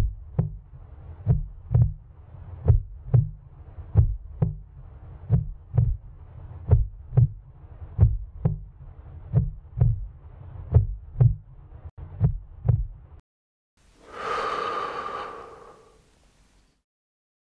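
Heartbeat sound effect: paired low thumps (lub-dub) about every one and a half seconds over a faint steady hum, stopping about thirteen seconds in. A swelling synthesised whoosh follows and fades out over about two seconds.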